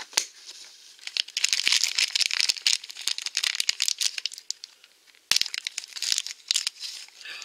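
Thin yellow plastic blind bag crinkling loudly as fingers work it open, in two long spells with a short pause between.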